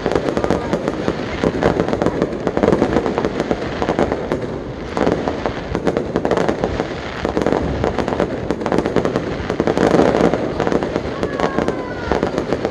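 Fireworks display: shots fired in rapid succession from one launch point, their bangs and crackles running together with hardly a gap. There is a brief lull about four and a half seconds in.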